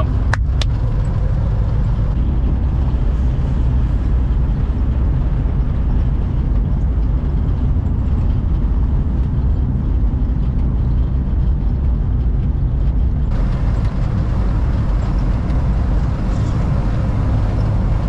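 Volkswagen Kombi van driving on the road: a steady, heavy rumble of engine and road noise, with a brief click just after the start and a brighter hiss joining about thirteen seconds in.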